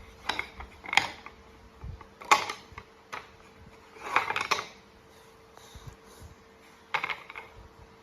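Bursts of clicking and clattering, like hard objects being handled or knocked together, coming in five short clusters, over a faint steady hum.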